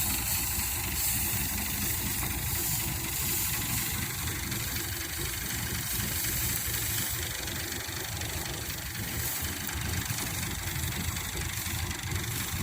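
Engine of a wheat reaper machine running steadily.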